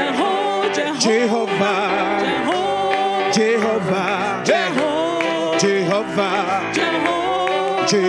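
Live gospel praise music: voices singing with band accompaniment over a steady, regular beat.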